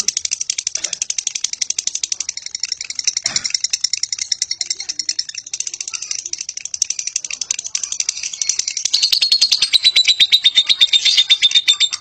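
Fischer's lovebird giving its long 'ngekek' chatter: a rapid, unbroken run of shrill clicking notes, many a second, that grows louder and fuller about nine seconds in.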